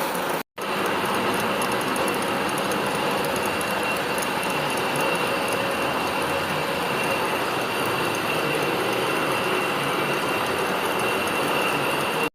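Machine-shop machinery running steadily during cylinder-head machining work, with the sound cutting out completely for a moment about half a second in.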